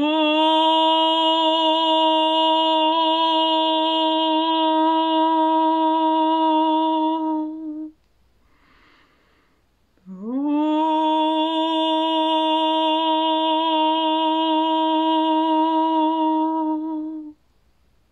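A woman's voice sounding two long held tones for sound meditation. Each note slides quickly up from low to a steady pitch and holds for about seven seconds, with a soft in-breath in the gap between them.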